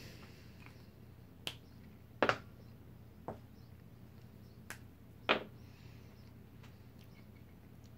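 Pens being handled on a tabletop: about five short, sharp clicks and taps, the loudest about two and five seconds in, as a Micron fine-liner pen is picked up to start inking.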